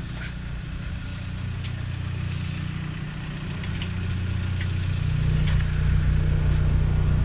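A car engine idling steadily, a low hum that grows louder about five seconds in, with a few faint clicks over it.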